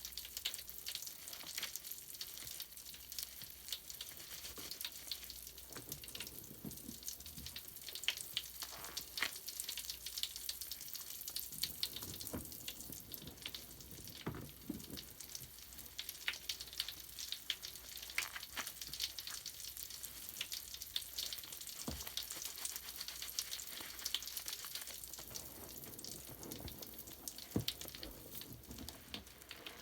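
Bubble bath foam crackling: a steady, dense fizz of tiny bubbles popping, with scattered louder clicks.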